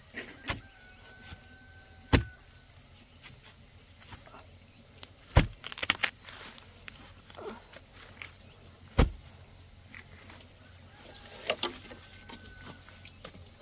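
Several sharp knocks at irregular intervals, the loudest a cluster about five and a half seconds in, over a steady high-pitched insect drone.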